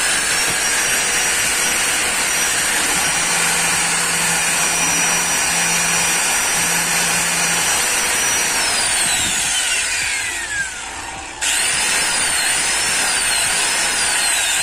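A new Maktec MT90 540-watt, 12,000 rpm angle grinder running free without load, giving a high whine. About eight seconds in it is switched off and winds down with a falling pitch. About three seconds later it is switched on again, its pitch dipping a few times, and near the end it starts winding down once more.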